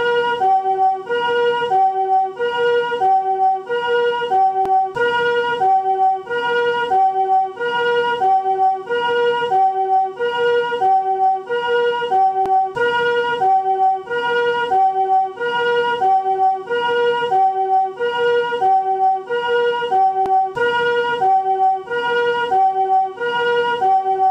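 Japanese ambulance two-tone siren of the newer chord-tone ('harmonic') type, alternating steadily between a higher and a lower chord of several pitches, the familiar 'pee-poh' about once a second.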